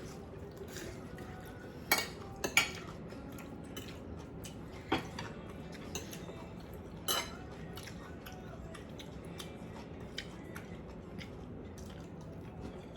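Cutlery clinking against a plate several times while eating, the sharpest knocks about two seconds in and again about five and seven seconds in, with quieter eating sounds between.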